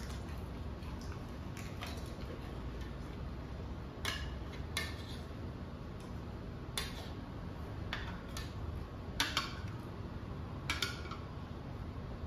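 Scattered sharp clinks and cracks as steel spoons tap against bowls and plates and crisp pani puri shells are poked open, a few seconds apart at first and then closer together, over a low steady hum.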